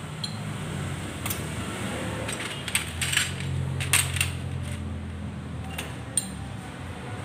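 Motorcycle clutch plates clinking against each other and the clutch hub as they are handled and fitted by hand: a scatter of light metallic clicks, the sharpest about three and four seconds in.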